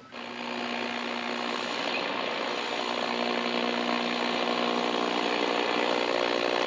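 Vintage GE clock radio's speaker giving AM-band static: a steady hiss with an electrical buzz through it, switching on suddenly at the start as the radio goes to AM at the bottom of the dial with no station tuned in.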